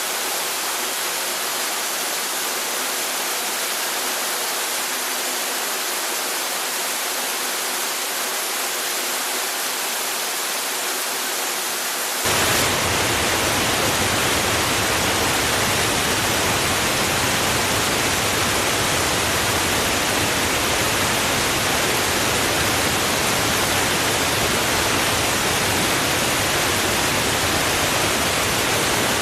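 Steady rushing of running water. About twelve seconds in it switches abruptly to a louder, fuller, more even rush.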